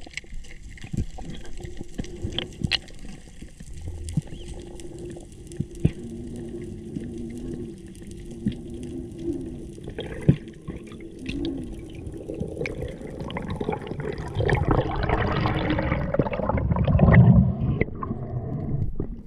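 Underwater sound picked up by a freediver's camera: scattered sharp clicks over a faint steady low hum. Water noise builds to a louder rushing over the last few seconds as the diver rises toward the surface.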